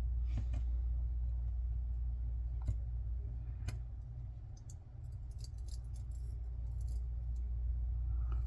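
Small metallic clicks and ticks of tiny lock pins and springs being handled and set into a padlock cylinder during repinning: a few separate sharp clicks, then a quick run of light ticks about five to seven seconds in, over a steady low hum.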